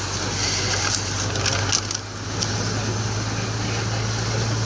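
Steady engine drone and road noise heard from inside a moving vehicle's cab, with a few light rattling clicks in the middle and a brief dip in the engine sound about two seconds in.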